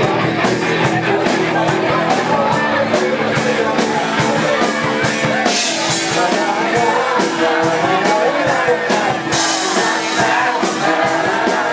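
Loud rock music with singing over a steady beat.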